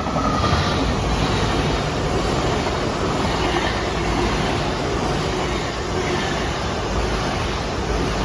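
Great Western Railway Class 802 bi-mode train passing through the station: a loud, steady rush of wheel, rail and running noise that builds just as it starts and holds throughout, with a faint whine dipping slightly in pitch in the first second.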